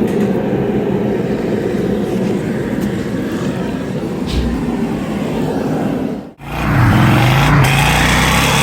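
The 454 big-block V8 of a 1999 Chevrolet Suburban 2500 running with road noise while driving. About six seconds in the sound cuts abruptly to a louder engine note that wavers up and down in pitch.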